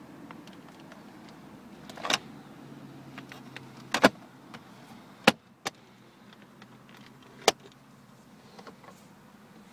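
Five sharp clicks and knocks of the Mercedes S55 AMG's centre console and armrest being handled, spread over several seconds, with a faint steady hum underneath.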